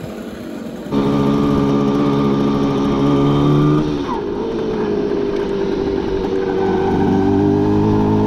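1972 Suzuki T125 Stinger's two-stroke twin engine running under way. Its note drops once about four seconds in as it changes gear, then holds steady.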